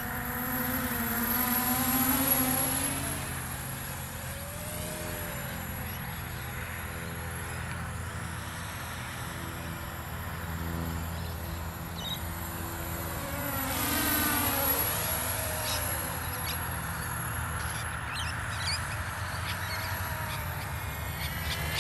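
FPV racing quadcopter's electric motors and propellers buzzing in flight, the whine swinging up and down in pitch as the quad passes close, loudest about 2 seconds in and again about 14 seconds in.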